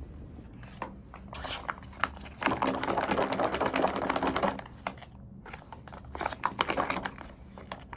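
Typing on a mechanical keyboard: a fast, dense run of key clicks from about two and a half to four and a half seconds in, then scattered single keystrokes and a shorter flurry near the end.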